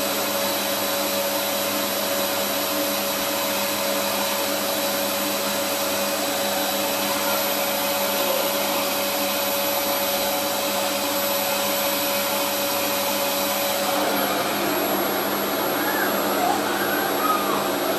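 Electric hair dryer running steadily with a whirring motor hum; its steady tone drops out about 14 seconds in and the airflow sound turns more uneven.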